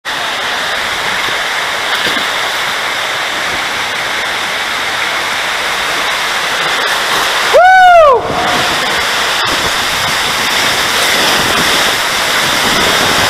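Water rushing steadily under a raft tube as it slides down an enclosed water slide flume into a funnel. About three-quarters of the way through comes a short, loud, high call that rises and falls in pitch.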